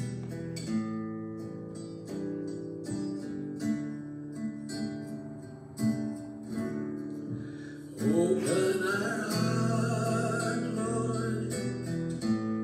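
A song accompanied by plucked and strummed acoustic guitar, with sustained notes. About two-thirds of the way through it grows louder and fuller as a singing voice comes in.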